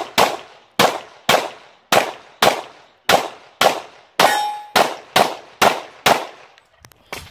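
A pistol fired in a rapid string, about thirteen shots roughly half a second apart, each followed by a metallic ringing clang from steel targets being hit. One ring about four seconds in carries a brief steady tone.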